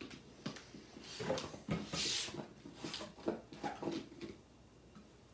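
Plastic knocks and clatter as the Eggstractor egg peeler's plastic cup is handled and pressed down over an egg on its stand. There is a short rushing scrape about two seconds in.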